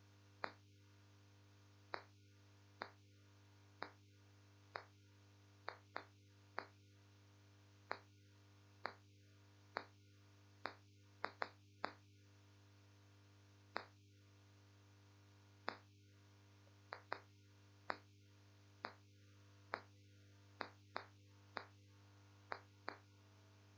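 Marker tip tapping on a whiteboard during writing: short, sharp taps about once a second, irregularly spaced, over a steady low electrical hum.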